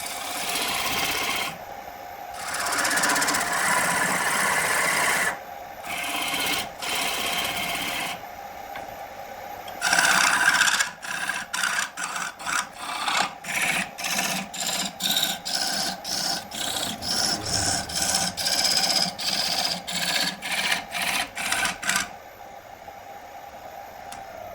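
Abrasive scraping on wood, like sanding or rasping. It goes in longer passes at first, then from about halfway turns into quick strokes about two a second that stop shortly before the end, over a faint steady machine hum.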